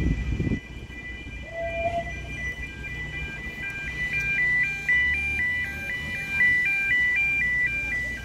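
E2S level crossing warning alarm sounding at an activation, in a way the title calls dodgy: a steady high tone that, a few seconds in, breaks into a fast stepping warble between several pitches. A brief low rumble comes at the very start.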